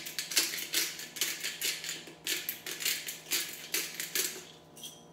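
A hand salt grinder being twisted, giving a rhythmic grinding of about three strokes a second that stops about four seconds in.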